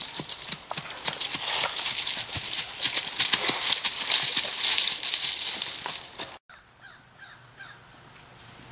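Horse's hoofbeats on grass strewn with dry leaves, with the leaves rustling and crunching under the hooves, loudest as the horse passes close. The sound cuts off abruptly about six seconds in, leaving a much quieter stretch.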